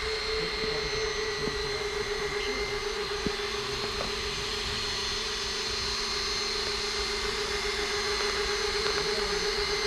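Steady motor whine: one constant, slightly wavering hum with fainter higher tones over an even rushing noise.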